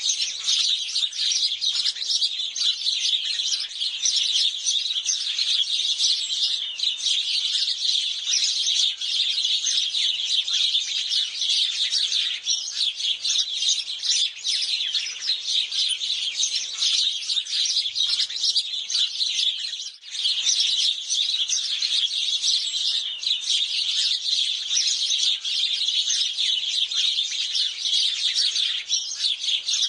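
A flock of house sparrows chirping continuously, many short overlapping chirps at once, with a brief break about two-thirds of the way through.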